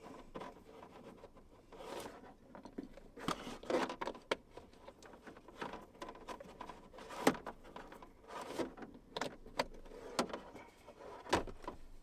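Power plugs being pushed into a portable solar generator's AC outlets while cords are handled: irregular small clicks and knocks with soft rustling between them.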